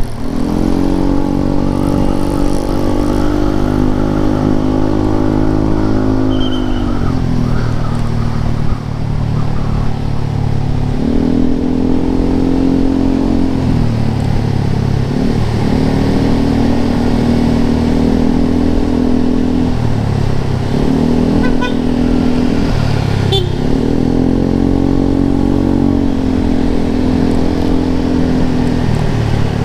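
Yamaha Lexi scooter's 125 cc single-cylinder four-stroke engine through an aftermarket Arrow exhaust, revving up repeatedly. Each time the pitch climbs, holds steady for a few seconds, then falls back before the next rise.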